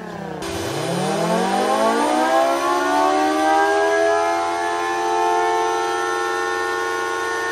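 Mini 3D-printed Federal Signal Thunderbolt 1003 siren winding up: a chord of several tones rises together and levels off into a steady wail. This is a test with the solenoid housing fitted but no solenoids installed yet, captioned a terrible failed test. In the first half second, the tail of a falling siren tone is cut off abruptly.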